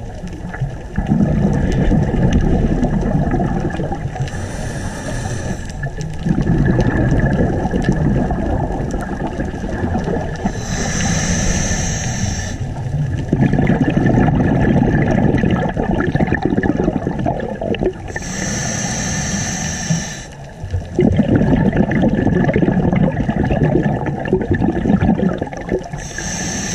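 Scuba diver breathing through a regulator underwater: a hiss on each inhale, then a long low bubbling rumble on each exhale, in a slow, even rhythm of about four breaths.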